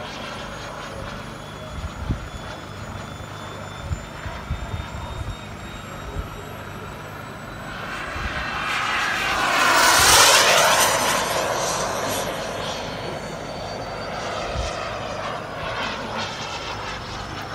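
Small RC jet's engine whining overhead, its thin high tones slowly rising, swelling into a loud fly-past about ten seconds in and then fading back. Rain hiss underneath, with a few short low thumps.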